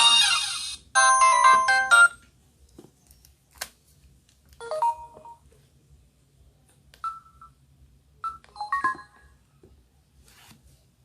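Polyphonic ringtone from a Samsung Gravity 2 (SGH-T469) cell phone, a multi-note melody that breaks briefly just under a second in, plays on and cuts off about two seconds in. A few faint short tones and clicks follow.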